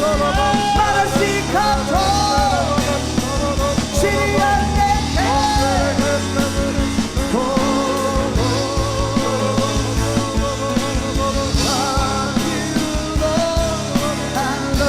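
Live church worship band playing, with singing over steady low bass notes and drums.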